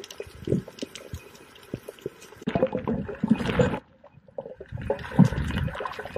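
Water sloshing and gurgling around a camera held underwater, with irregular knocks. A louder rush of water a little before the middle cuts off suddenly for under a second, then picks up again.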